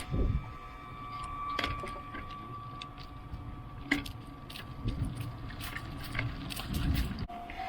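Bicycle rattling and clicking, picked up through a handlebar-mounted action camera, with a faint steady tone behind it. Near the end a louder, evenly pulsing tone of a level crossing warning bell starts.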